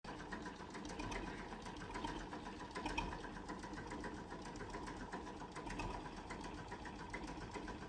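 A small machine running with a fast, even ticking clatter.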